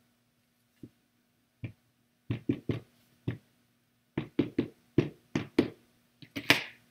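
Ink pad dabbed against a clear stamp mounted on an acrylic block: a series of light, quick plastic taps in short runs, with one louder knock near the end.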